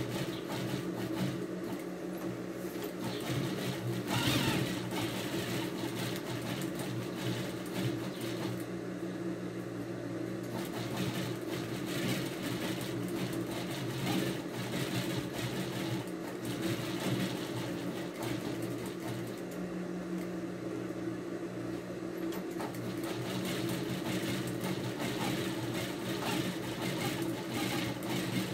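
Electric sewing machine running steadily, stitching along the curved edge of a fabric piece.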